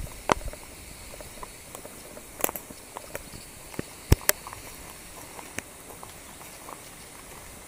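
Footsteps on a dirt and leaf-litter forest trail: irregular crunches and taps, the sharpest about two and a half and four seconds in.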